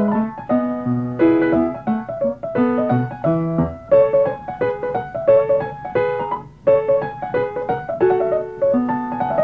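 Background piano music: a brisk run of short notes and chords with no pause.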